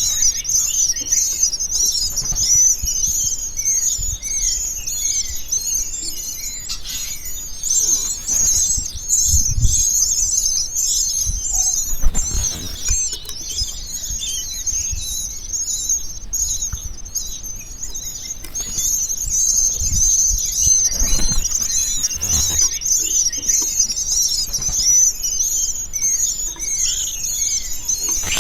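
Common starling nestlings calling constantly inside a nest box: a dense, high-pitched chorus of squeaky chirps that runs without a break. Scattered rustles and thumps of the birds moving in the box come through underneath, several times.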